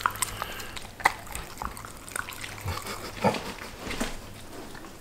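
Border collies eating soft, wet food: chewing, licking and lip-smacking, with scattered small clicks.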